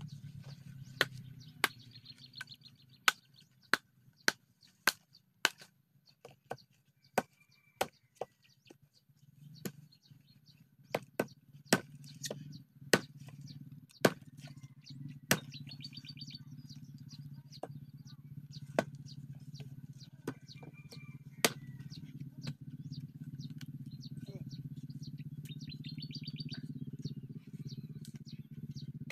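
Bolo knife chopping dry wood from a long-fallen mango tree: sharp single strikes, irregular, about one a second, thinning out in the second half.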